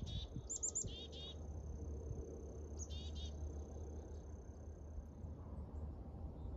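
Field insects, likely crickets, chirping in a few short rapid bursts, with a thin steady high-pitched trill that stops about five seconds in, over a faint low rumble.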